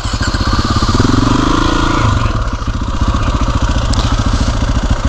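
Motorcycle engine running steadily as the bike rides along, its firing pulses heard as an even throb.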